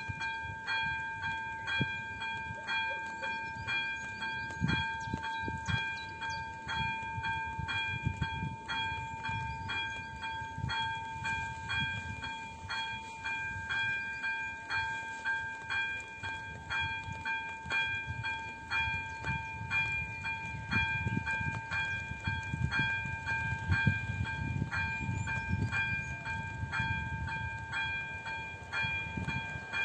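Electronic warning bell (AŽD Elektronický 02) of an AŽD 97 level crossing ringing with even, repeated dings, which means the crossing is active and a train is approaching. Underneath is a low rumble that rises and falls.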